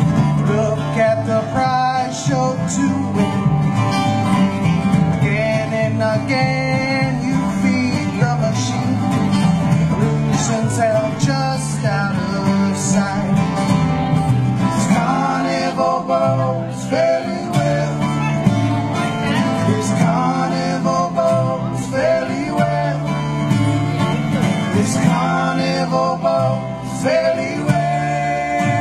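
Bluegrass band playing an instrumental passage: two acoustic guitars picking lead and rhythm over an upright bass plucking a steady beat.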